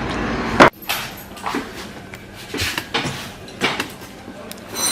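A steady hum cuts off abruptly under a second in. It is followed by a handful of scattered light clinks and knocks of metal car parts being handled on the workshop bench.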